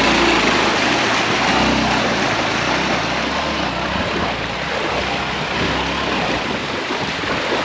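A Hero Xtreme 160R's single-cylinder engine pulling the motorcycle through shallow river water, with the wheels splashing. The engine grows fainter as the bike moves off, and wind buffets the microphone throughout.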